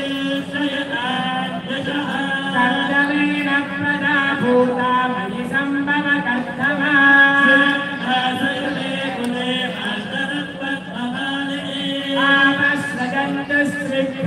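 Hindu devotional chanting for Ayyappa: voices singing a hymn with long held notes over a steady low tone.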